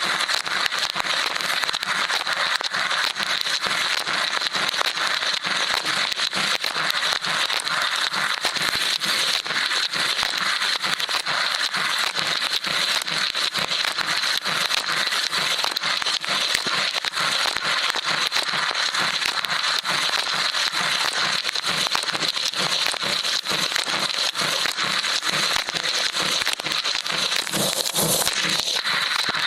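Water from the spray arms of a running LG dishwasher pelting an action camera placed inside it: a loud, steady crackling spatter, with a steady high tone running under it.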